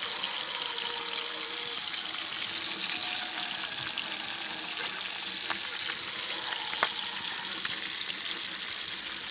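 Tilapia frying in hot oil: a steady sizzle with a few sharp pops, about five and a half and seven seconds in.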